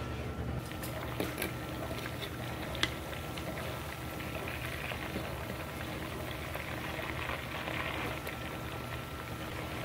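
Chicken pieces frying in hot oil in a pot: a steady sizzle and crackle, with scattered clicks of a fork against the pot as the pieces are turned, the sharpest about three seconds in.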